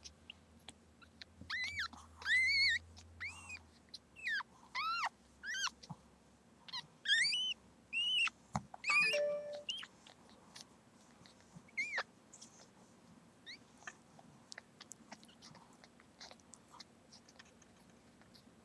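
Newborn chihuahua puppy crying in a string of short, high-pitched squeaks that rise and fall, about a dozen in the first half, then a few scattered ones, with soft wet licking noises from the mother between them.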